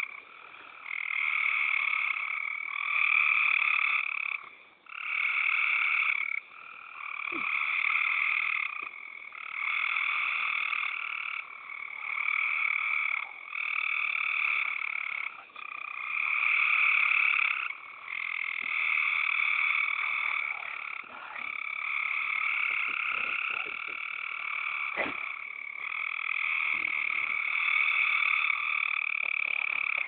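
A loud chorus of frogs calling, in overlapping trains of a second or two with short gaps between them.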